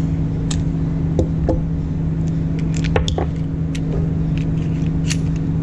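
Steady low hum of an indoor shooting range's air handling, with a scatter of short sharp clicks and knocks, several of them about three seconds in.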